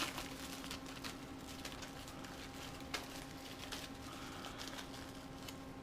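Faint clicks and light handling noise of small plastic parts being picked up and turned over, over a steady low hum.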